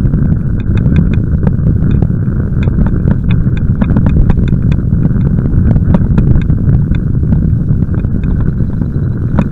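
Steady low rumble of wind on the microphone of a bicycle-mounted camera and tyres rolling on a tarmac path, with frequent small irregular clicks and rattles.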